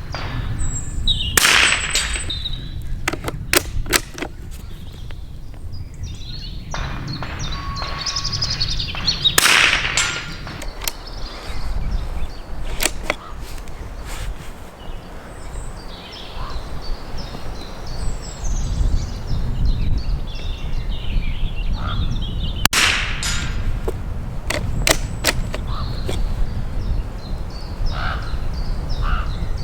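Norinco JW25A .22LR bolt-action rifle (a K98 copy) fired three times, with long gaps of several seconds between shots. Smaller sharp clicks and knocks come between the shots, over a steady low rumble.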